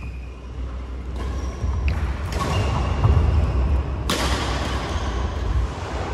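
Badminton rally on an indoor court: a few short shoe squeaks and racket-on-shuttlecock hits, one sharp hit about four seconds in, over a steady low rumble and rushing noise.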